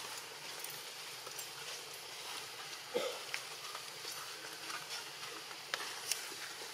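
Outdoor ambience: a steady high hiss of insects with scattered faint clicks, and one short low sound about three seconds in.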